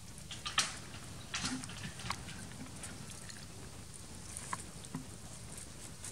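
Scattered soft crackles and clicks of dry leaf litter and twigs as long-tailed macaques shift about and eat, over a steady faint hiss.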